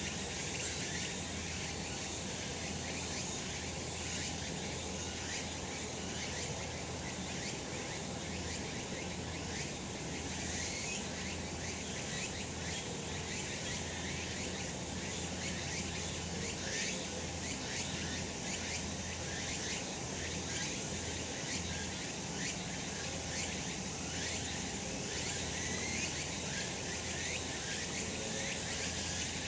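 Cicadas singing in a dense, steady chorus of high-pitched buzzing.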